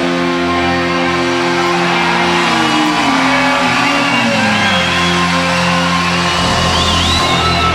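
Music: a loud, dense rock-style track with sustained chords that slide downward partway through.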